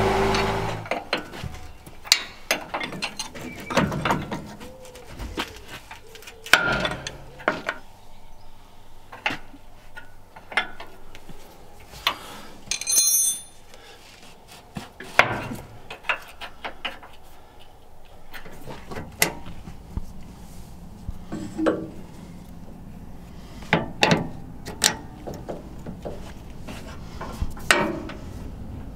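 Irregular metal clanks, clinks and knocks of hand tools and fittings on a steel spreader subframe as it is secured to the sprayer chassis, with a brief high metallic ring about halfway through. A faint low hum comes in during the second half.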